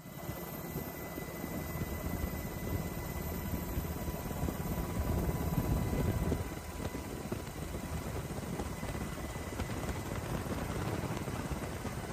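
Military helicopter flying overhead, a steady rotor and engine noise that grows louder around the middle and then eases back.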